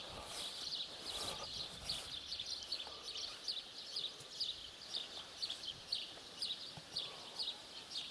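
A small bird calling in a steady series of short, high, falling chirps, about three a second.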